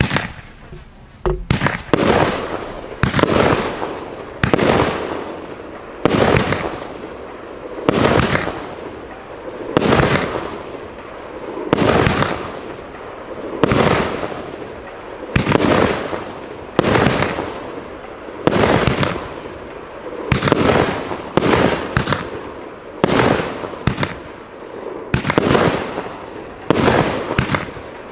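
Profire Brocade King Blue 25-shot firework cake firing shot after shot, about one a second. Each shot is a sharp bang that dies away over about a second.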